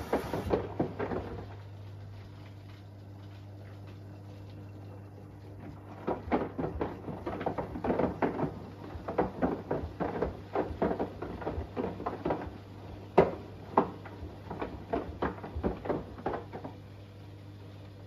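Washing machine drum turning with an iPhone 11 tumbling inside it, knocking and clattering against the drum over a steady low hum. A few knocks come at the start, then a pause of a few seconds, then about ten seconds of irregular knocks that stop near the end.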